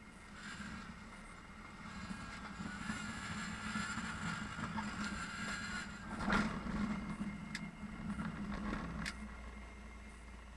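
Cessna 150's Continental O-200 four-cylinder engine and propeller throttled back to idle for landing, heard inside the cabin with airflow noise. About six seconds in comes a single loud thump, the wheels touching down, then the rumble of rolling on the runway with a couple of sharp clicks.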